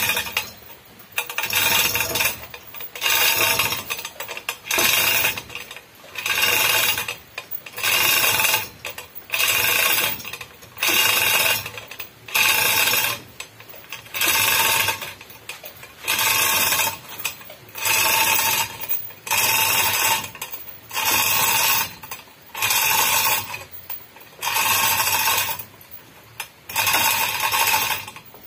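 Manual chain hoist lowering an engine, its chain and pawl clattering in a burst about once a second, one for each pull on the hand chain.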